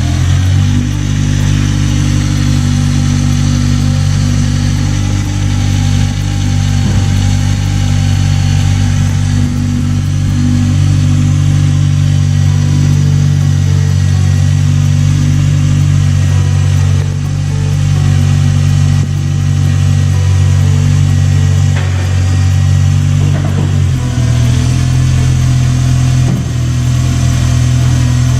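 Kia Elan's T8D four-cylinder engine running steadily at idle on its first run after a cylinder-head repair. The pitch dips slightly about 24 seconds in.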